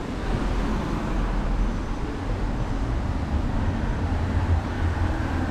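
Steady city street noise: a low rumble of road traffic with a general outdoor hum, with no single event standing out.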